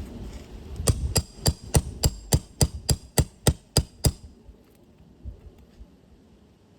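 A quick series of about a dozen sharp metallic taps, evenly spaced at roughly three a second, from a metal hand tool striking on the roof; they stop about four seconds in.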